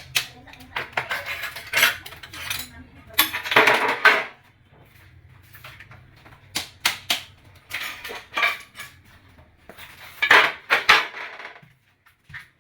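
Hard tools scraping and clinking on ceramic tile, in irregular bursts of scraping with sharp knocks and taps in between.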